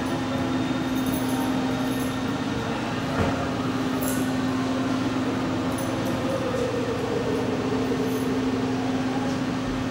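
Steady mechanical hum over an even hiss, like air conditioning, with one sharp knock about three seconds in.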